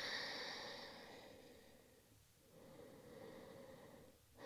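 A person's slow, audible breath out that fades away over the first second or so, then a softer breath later on.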